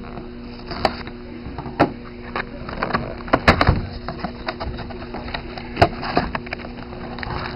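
Hands opening and handling a cardboard box of trading cards: irregular sharp clicks, taps and rustles, with a quick cluster a little past the middle, over a faint steady hum.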